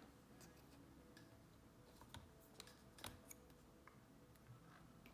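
Near silence broken by a few faint, scattered clicks: a small T5 Torx screwdriver working the tiny screw that holds the SSD in a MacBook Air.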